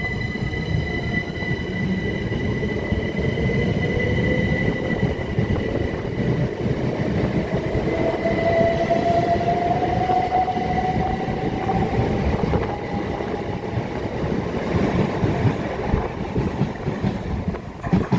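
Two coupled Class 375 Electrostar electric multiple units pulling away from the platform, accelerating. The traction whine rises steadily in pitch over the rumble of the wheels, while a steady high electrical tone fades out over the first half.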